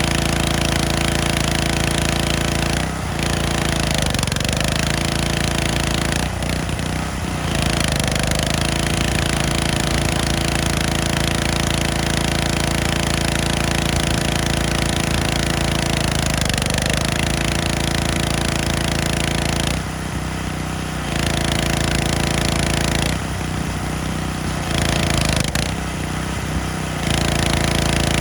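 Gas pressure washer running steadily, its engine drone under the loud hiss of the spray wand; the engine pitch sags briefly a few times as it takes load. Near the end the spray stops three times for a second or so, leaving only the engine.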